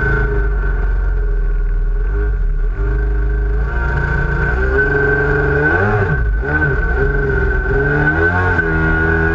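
Big-bore 920cc two-stroke engine of a Sea-Doo XP personal watercraft running hard at high revs, with a steady high whine over it. Past the middle the revs waver, dipping and climbing back a few times as the craft carves across the water.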